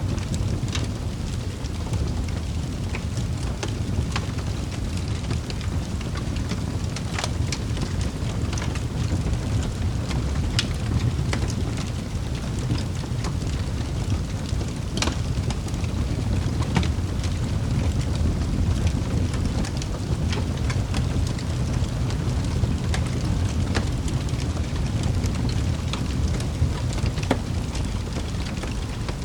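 Wood fire crackling in a fireplace: a steady low rumble of burning with sharp pops and snaps at irregular intervals.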